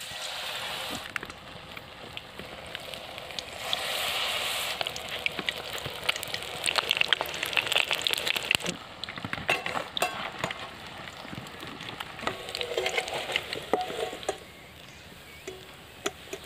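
Batter-coated boiled egg pieces deep-frying in hot oil in a steel kadhai: a dense sizzling hiss full of sharp crackles. It swells as pieces go in near the start and again about four seconds in, and eases off near the end.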